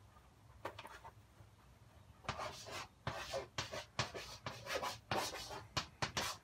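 Chalk writing on a blackboard: a quick, irregular run of short chalk strokes as a word is written, starting about two seconds in, after a couple of faint strokes.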